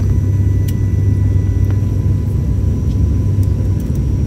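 Steady low drone of an ATR 72's twin turboprop engines and propellers, heard inside the passenger cabin during the landing approach, with faint steady high tones above it.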